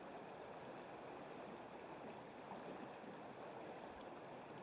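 Faint, steady running water of a river stream.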